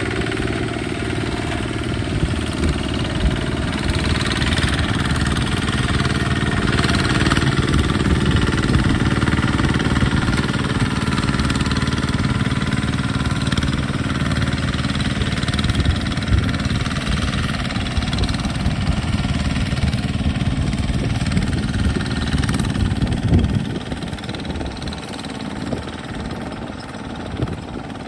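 Single-cylinder diesel engine of a Kubota two-wheel walking tractor running steadily under load as it pulls a boom sprayer, with rapid even firing pulses. The sound drops somewhat a few seconds before the end as the tractor moves away.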